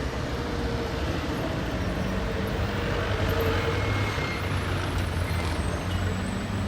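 Street traffic ambience: a continuous rumble of passing cars, scooters and buses with engines humming, swelling slightly about halfway through.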